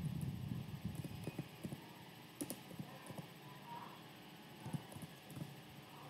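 Computer keyboard keys tapped in a faint, irregular run of clicks while a word is typed.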